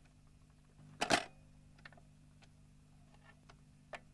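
Record changer's mechanism cycling after being switched on: one sharp clunk about a second in, then a few faint clicks as the tonearm moves over to the record, over a low steady hum.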